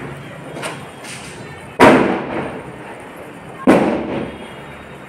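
Firecrackers bursting: two loud bangs about two seconds apart, each trailing off in a short echo, with a fainter pop about half a second in.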